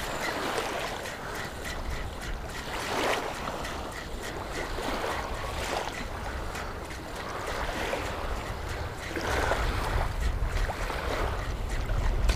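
Wind buffeting the microphone over lapping shore water, a steady low rumble and hiss. A faint, regular ticking, about three a second, runs through the first few seconds, fitting a spinning reel being cranked during the retrieve.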